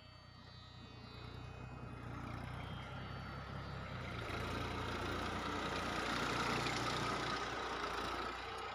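Massey Ferguson 1035 DI tractor's three-cylinder diesel engine running steadily under load while it pulls a mounted disc plough, growing gradually louder.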